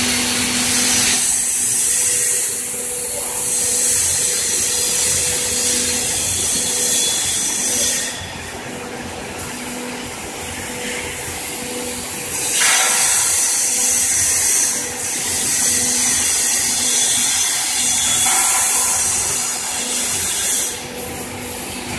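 Airlay carding machine running: a steady mechanical hum under a loud high hiss. The hiss drops away about eight seconds in and comes back a few seconds later.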